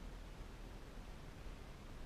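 Low, steady rumble with faint hiss inside a moving car's cabin: road and engine noise at low volume.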